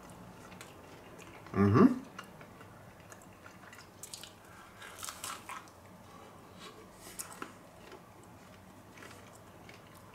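A person chewing a mouthful of pizza, with small crunches and smacks now and then. About two seconds in comes a short hummed "mm", the loudest sound.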